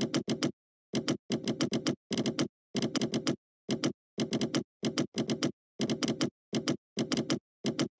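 Computer keyboard typing in quick bursts of several keystrokes, with short pauses between the bursts.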